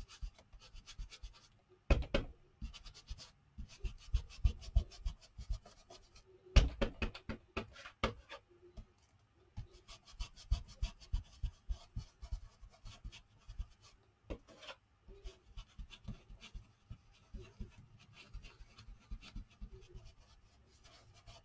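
Ink blending tool dabbed and rubbed over a stencil on paper: quick repeated taps with scratchy rubbing, louder in clusters about two seconds in and again around seven seconds.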